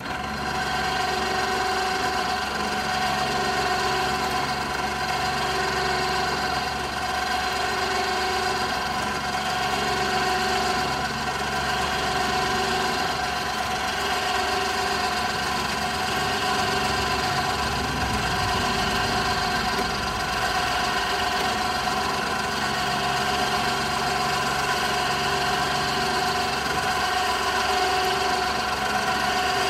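Electric ATV winch running steadily with a constant pitched hum, its motor and gears slowly reeling in steel cable. It starts abruptly right at the beginning.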